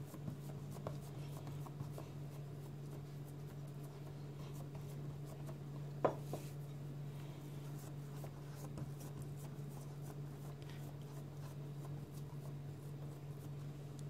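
Fingers pressing and patting soft dough into a cake pan: faint rubbing and light taps, with one sharper knock about six seconds in, over a steady low hum.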